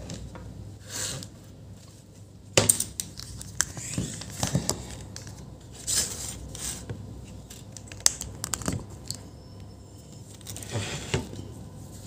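Irregular clicks, taps and short scraping rubs from multimeter test probes being handled and pressed onto the components of a laptop motherboard while it is checked for short circuits.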